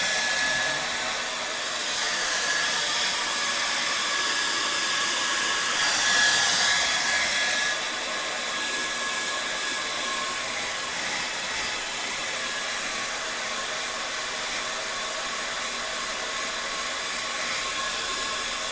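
Hand-held electric hair dryer running: a steady rush of blown air with a high motor whine. It swells briefly about six seconds in, then settles.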